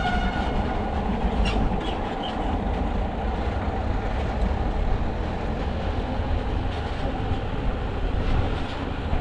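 Dhaka Metro MRT Line-6 electric train running on its trial run, a steady rumble of wheels on the rails with light clicking; its horn tails off at the very start.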